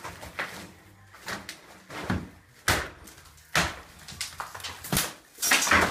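Old plaster being pried off a wooden lath ceiling and falling, as a run of about eight irregular cracks and crashes with the longest near the end.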